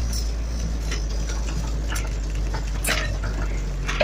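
Four-wheel-drive vehicle heard from inside the cab while driving on a dirt track: a steady low engine and road drone, with a few scattered rattles and knocks from the bouncing cab.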